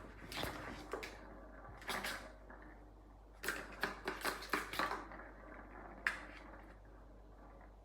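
A cat toy clattering on a hard surface as a cat plays with it: short knocks, a quick run of about half a dozen near the middle, then one last knock.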